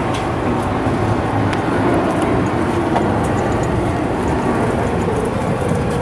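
Steady, loud city traffic noise: a continuous rumble of passing vehicles.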